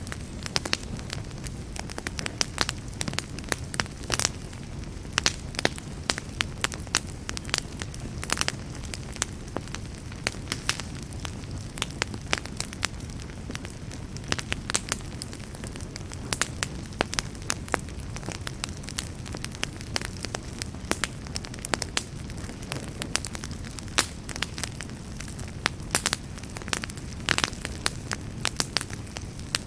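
Wood fire burning in a fireplace, with frequent irregular sharp crackles and pops over a steady low rumble of the flames.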